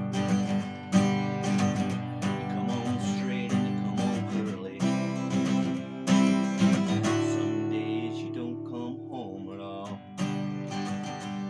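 Acoustic guitar strummed in a steady pattern through the song's G, C and D chords, with a final strummed chord about ten seconds in left to ring out and fade.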